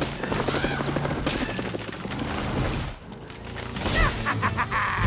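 Cartoon action sound effects: a rapid barrage of hits and pops for about three seconds, then after a short lull more sharp impacts, with music underneath.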